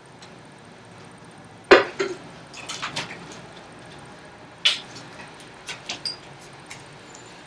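Kitchen clatter: a string of sharp knocks and clinks as dishes and glassware are handled and set down. The loudest knock comes about two seconds in and another about five seconds in, with smaller clinks between and after.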